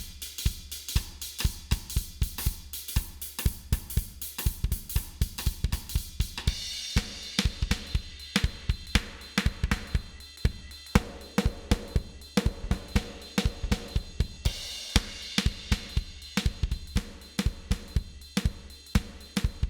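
A recorded drum kit playing a steady beat through an Allen & Heath GL2400 analog mixing console, with the console's high-mid bell EQ being swept. The drums' tone keeps shifting as the boosted band moves, sounding brighter in places and fuller in the lower mids in others.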